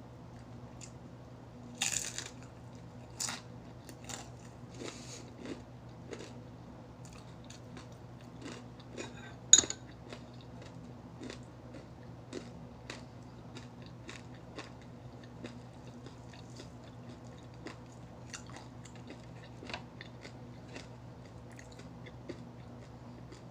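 Close-miked eating of crispy fried chicken: a few loud crunching bites early on, then steady chewing, with one sharp ringing clink about ten seconds in, the loudest sound, over a low steady hum.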